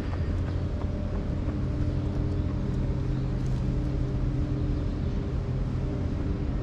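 A steady low mechanical hum with a few held tones, from an unseen motor running close by.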